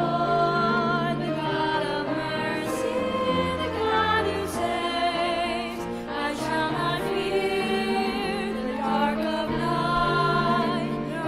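A hymn sung by a cantor with vibrato and the congregation, over instrumental accompaniment that holds steady bass notes changing from chord to chord.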